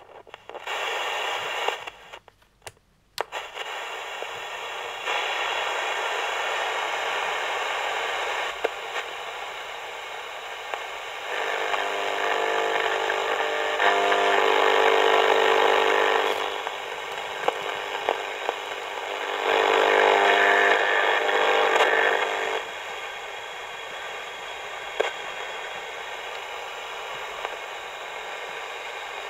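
Sony ICF-210W pocket AM/FM radio tuned by hand between stations: static hiss from its small speaker that changes level as the dial moves. Twice it swells into a louder patch with steady whistling tones, a station's carrier or interference caught between stations.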